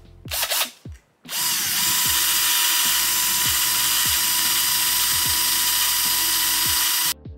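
Power drill running flat out for about six seconds, a steady whine over a loud hiss, drilling into a metal seat rail. It spins up about a second in and stops abruptly near the end, after a few short clicks.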